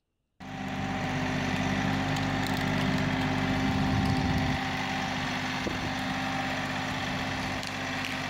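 Diesel engine of a Kioti NX6010 compact tractor running steadily as the tractor drives with a loaded front-loader bucket. It cuts in abruptly about half a second in.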